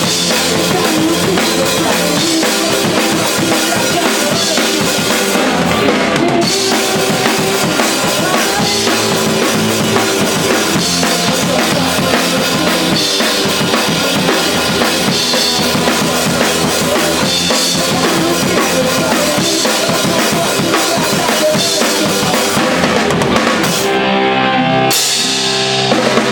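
A band playing live, with a full drum kit (kick and snare) driving under guitars and other instruments. Near the end the cymbals and high end drop out for about a second in a short break, then the band comes back in.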